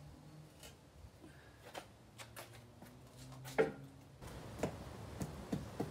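A few light clicks and knocks as a cast-iron camp oven is handled with oven gloves, lifted off the coals and set down on a wooden board, with one louder knock about three and a half seconds in.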